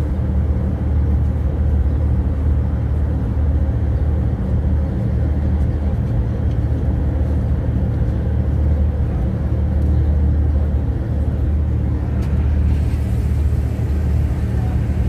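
Volkswagen Kombi van driving, a steady low engine drone with road noise, heard from inside the cab. A little more hiss joins in near the end.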